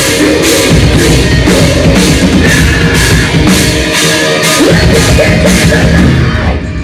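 Live rock band playing loudly: distorted electric guitar over a drum kit, with crash cymbal hits about twice a second. The music cuts off near the end as the song finishes.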